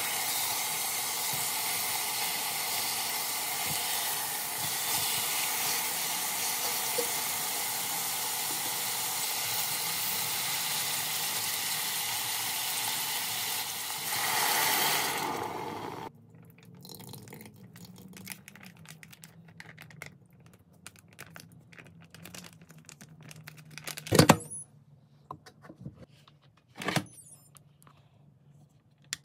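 Chicken sizzling steadily in an Instant Pot's stainless inner pot on the sauté setting. Water poured in near the middle makes a brief louder surge before the sizzle cuts off suddenly. After that, small clicks and two sharp knocks come from the pressure-cooker lid being put on.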